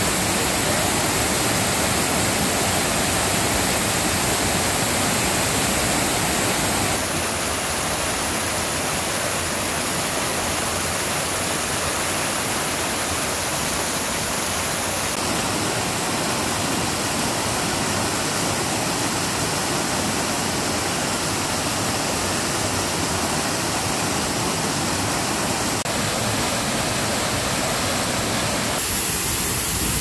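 Waterfall pouring over rock ledges, heard up close as a steady rush of falling water. Its tone changes abruptly a few times, about a quarter and half of the way through and again near the end.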